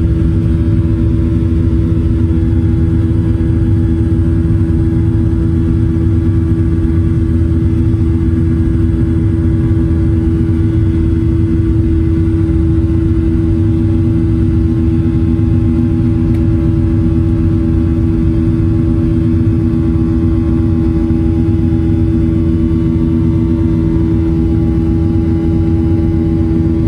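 Jet engine noise inside a Boeing 737-700 cabin: the CFM56-7B turbofans running at steady power, heard as a loud, even rumble with one strong unchanging tone over it.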